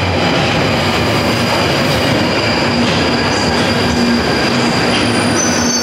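London Underground Northern line train running at the platform: a loud, steady rumble of wheels on rail with a high whine over it.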